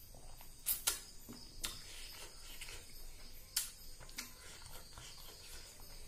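Wet eating sounds of rice and fish curry eaten by hand: chewing and mouth smacks with sharp, irregular clicks, the loudest a little under a second in and again about three and a half seconds in.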